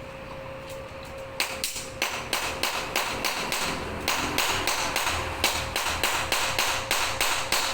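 Hammering: quick repeated hammer blows, about three a second, starting about a second and a half in and keeping on.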